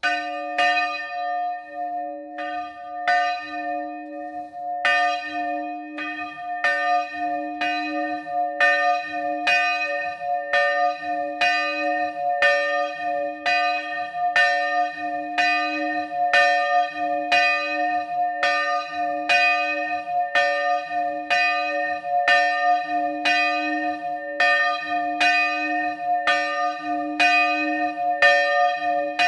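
A single bronze church bell, one of the smaller bells of a three-bell De Poli ring cast in 2012, swinging electrically in the Friulian 'slancio' style. Its clapper strikes as soon as the swing begins, a little unevenly for the first few seconds, then steadily at about one stroke a second as the bell swings high, with each stroke ringing on into the next.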